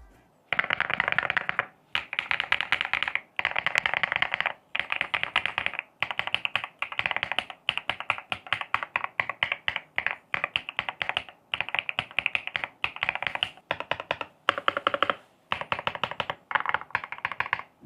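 Mechanical keyboard typed on in quick runs of rapid key clicks, each run lasting about a second with short pauses between. It is a custom ROG keyboard with gold switches and a mix of original and metal keycaps, being typed on as a test after modding.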